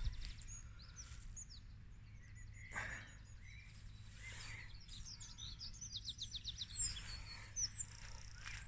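Songbirds singing, with many short chirps and fast repeated trills, over a faint steady low hum.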